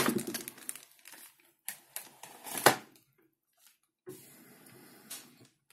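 Small clear plastic zip bags of rotary-tool accessories crinkling as they are handled over a plastic carrying case, in several short rustles with quiet gaps between them.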